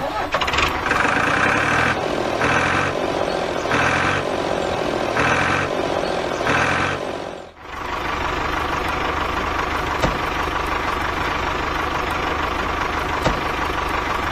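A vehicle engine running, with a repeating pulse about every second and a half in the first half. After a brief drop about halfway through, it runs on as a steady drone.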